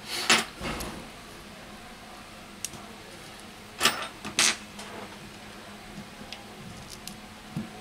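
Handling noise from a phone's metal midframe and battery being picked up and turned in the hands: a few short scrapes and knocks, loudest just after the start and again about four seconds in, over a faint steady hum.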